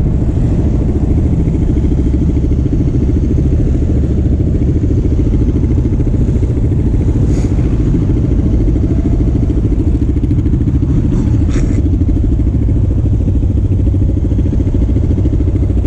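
Quad bike engine idling steadily close by, with an even low pulsing and no revving.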